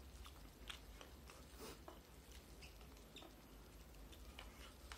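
Faint eating sounds: scattered small wet clicks of mouth-closed chewing and of fingers mixing rice by hand, over a low hum.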